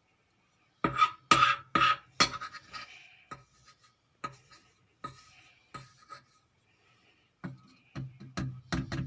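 A spoon clinking and scraping against a small bottle as honey is added to it. There is a quick run of four sharp clinks about a second in, then lighter, spaced-out taps, and another cluster near the end.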